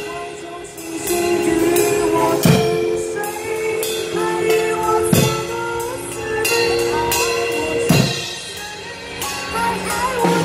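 Acoustic drum kit played along with a recorded song that has a singing voice. Big accented hits land about every two and a half seconds, with lighter strokes between them.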